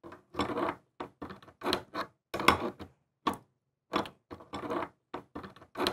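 Crescent wrench working a faucet cartridge's bonnet nut loose: a string of short, irregular metal clicks and scrapes with brief pauses between them.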